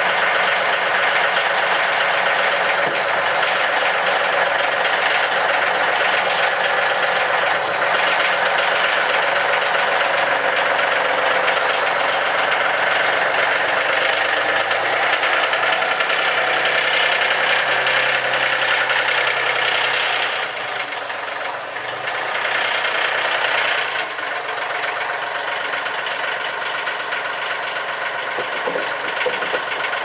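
John Deere compact tractor's diesel engine running with a knocking clatter as it lifts a heavy slab on its forks and drives off with it, running steadily and getting somewhat quieter about two-thirds of the way through.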